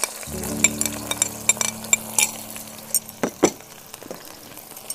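Sliced onions sizzling in hot oil in a wok. A metal spoon scrapes and clinks sharply against the plate and pan many times as the onions go in and are pushed around.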